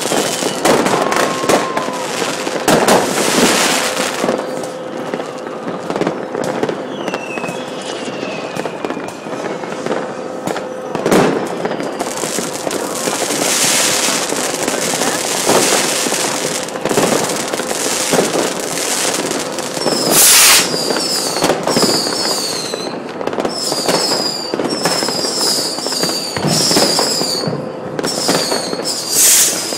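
Fireworks going off: repeated sharp bangs of rockets and firecrackers over a constant crackle. In the last third comes a quick series of high, falling whistles, about one a second.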